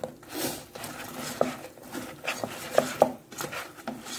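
Wooden spatula stirring and scraping sauce-coated chicken pieces around a coated frying pan, with irregular knocks and scrapes against the pan.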